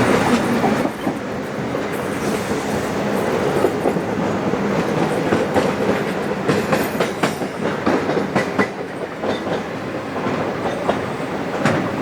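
Passenger train hauled by steam locomotive 3801 running along the line: a steady rumble of carriage wheels on the rails, with irregular clicks and clatter from the wheels and couplings.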